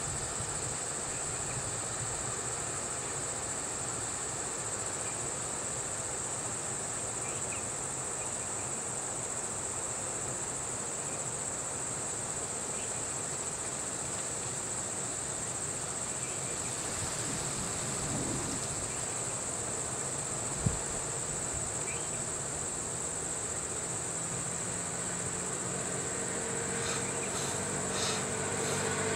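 Steady high-pitched drone of insects. A single sharp click about two-thirds of the way through, and a vehicle engine hum building near the end.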